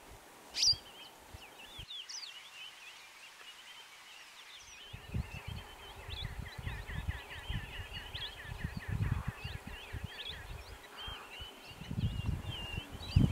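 Several birds chirping and whistling, with a quick regular trill running for several seconds and one louder sharp call under a second in. A low rumbling noise comes in from about five seconds and grows louder near the end.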